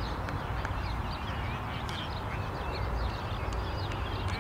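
Several birds chirping and calling in many short, quick notes over a steady low rumble.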